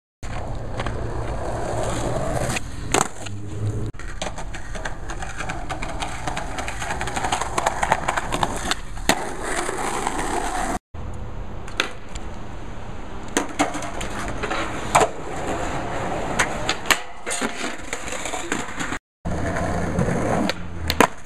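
Skateboard wheels rolling on rough asphalt, a steady grinding rumble, with sharp clacks of the board hitting the ground as tricks are popped and landed. The sound cuts off briefly twice.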